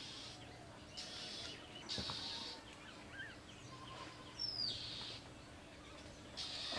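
Faint outdoor background with birds calling on and off, short high calls about once a second, one sliding down in pitch about four and a half seconds in. A single light tap comes about two seconds in.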